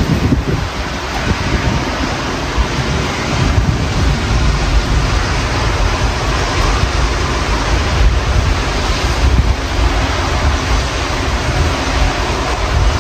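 Strong storm wind gusting across the microphone: a steady rushing noise with a heavy, uneven low buffeting rumble.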